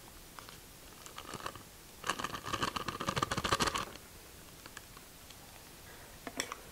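Crinkling and scratching of a paper butter wrapper being peeled off a stick of soft butter, a dense burst lasting about two seconds. Near the end, a few sharp clicks as the metal lid of a glass jar is handled.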